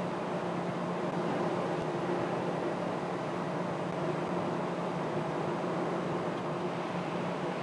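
Resina NRK-400 inline spindle capping machine running at speed while capping plastic syrup bottles: a steady mechanical whir with a few constant hum tones, even throughout.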